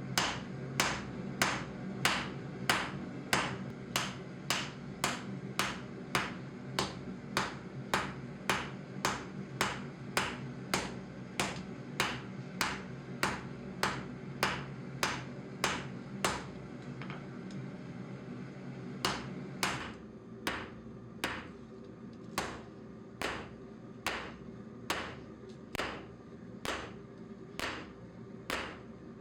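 Hammer blows forging hot crucible steel, drawing it out into a knife blank: a steady run of sharp strikes about two and a half a second, pausing briefly past halfway and then going on a little quieter. A steady low hum sits underneath and drops away about two-thirds of the way through.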